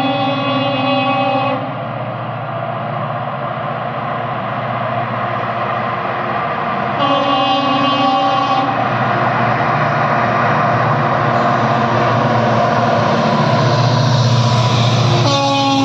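Diesel locomotive approaching with a freight train, its engine and wheels rumbling steadily louder as it comes closer. Its multi-tone horn sounds for about a second and a half at the start, again about seven seconds in for under two seconds, and once more near the end as the locomotive passes.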